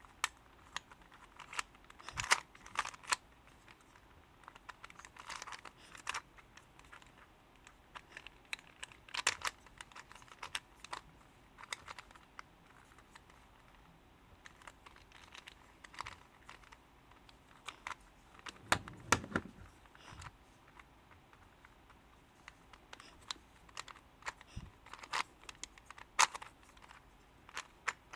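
Plastic clicking and clacking of a Ghost Cube, a shape-shifting 3x3 twisty puzzle, as its layers are turned by hand. The turns come in irregular bunches with quiet gaps between, and there is a duller handling rub about two-thirds of the way through.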